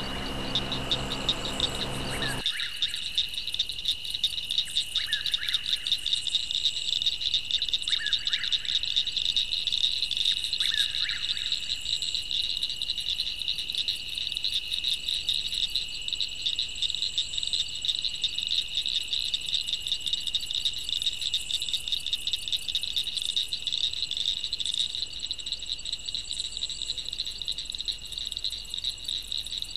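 Dense chorus of high, rapidly pulsing animal trills over a steady high-pitched whine. A few short, lower calls stand out in the first dozen seconds.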